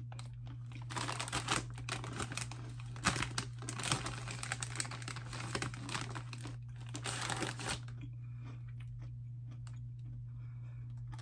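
Cheetos Pretzels snack bag crinkling as a hand rummages inside it for pretzels. The crinkling goes on for about seven seconds, then stops.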